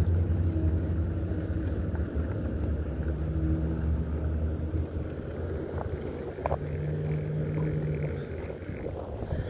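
A motor runs steadily with a low, even hum, with faint clicks about two-thirds of the way through, then cuts off suddenly at the end.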